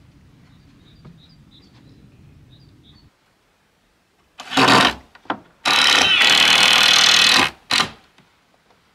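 Cordless drill driving screws into a wooden window frame: a short burst, then a steady run of about two seconds, then a brief final burst.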